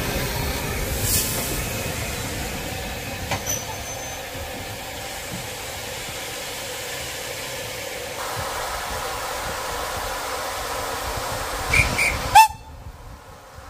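Steam locomotive standing at the platform with a steady hiss of escaping steam, easing off and then swelling again. Just before the end come a few short, sharp whistle notes, the last the loudest, and then the sound drops away suddenly.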